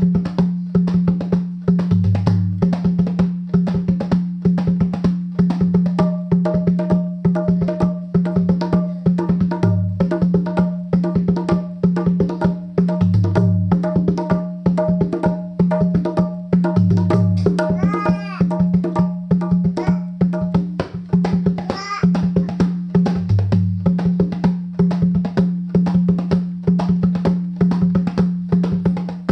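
Dholak drum, its bass head treated with Sikaflex sealant, played in a fast, unbroken solo rhythm of dense strokes over a steady low hum.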